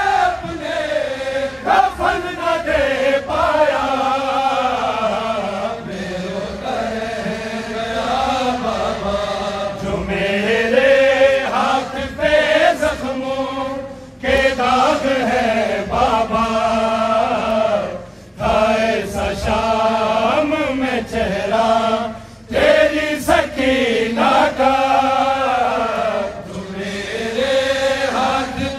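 A noha, the Shia lament, chanted by a male reciter on a microphone with a crowd of male mourners joining in, in long wavering sung phrases with short breaks between them.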